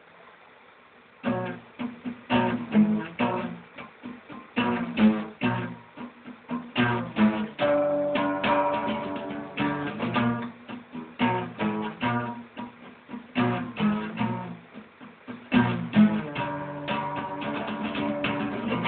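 Acoustic guitar being strummed: chords in a steady rhythm, starting about a second in.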